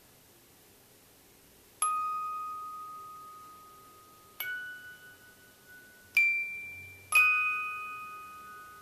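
Four single bell-like chime notes, struck slowly one at a time, each ringing on and fading away. The third and fourth notes are the highest and loudest.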